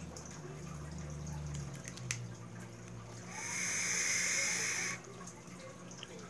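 A draw on a Fishbone rebuildable dripping atomizer as its coil fires: a steady hiss of freshly dripped e-juice vaporising on the coil, about a second and a half long, cutting off suddenly. A single sharp click comes a second or so before it.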